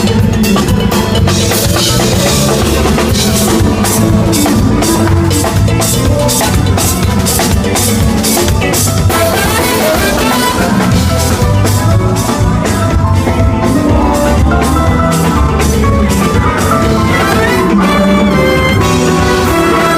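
Live band playing through amplification during a sound check, with the drum kit keeping a steady beat over bass and other instruments.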